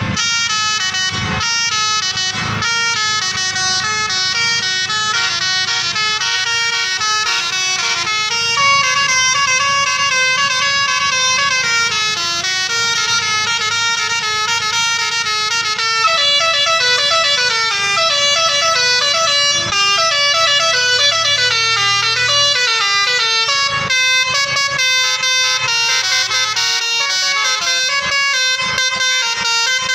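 Tour bus 'telolet basuri' musical horn, a set of horn trumpets, playing a tune without a break. Its quick notes step up and down in pitch, with several tones sounding together.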